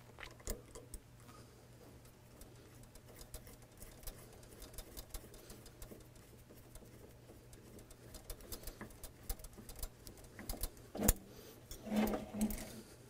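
Faint irregular clicking and ticking as the hydraulic pump's mounting bolts are threaded back in and tightened, with one sharper click about 11 seconds in, over a low steady hum.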